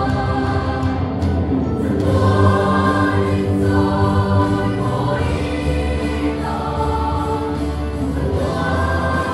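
Mixed church choir of men and women singing a hymn in parts, with held chords that change every second or two, over a low, steady instrumental accompaniment.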